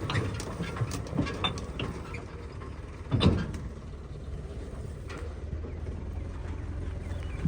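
Tractor engine running steadily at low revs, with scattered clanks and knocks and a louder burst about three seconds in.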